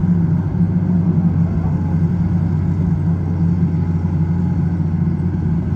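Heavy diesel engine of a Hitachi EX200 excavator running steadily, a continuous low drone at a constant pitch.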